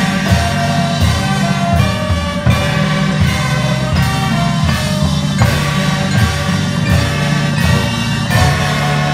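High school marching band playing: held brass notes over a strong bass, with drum hits about every three-quarters of a second.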